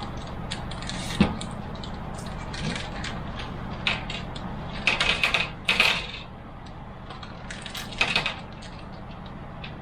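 Computer parts being handled and set down: a sharp click about a second in, then bursts of rattling and rustling in the middle and again near the end, over a steady low hum.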